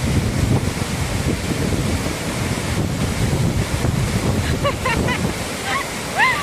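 Waterfall rushing with a steady, loud roar, with wind buffeting the microphone. In the second half a few short, high-pitched calls cut through, the last a rising call near the end.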